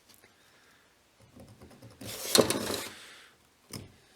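Hand tools and a small steel workpiece being handled on a workbench during layout marking: faint small knocks, then a scraping clatter about two seconds in that lasts about a second, and a short knock near the end.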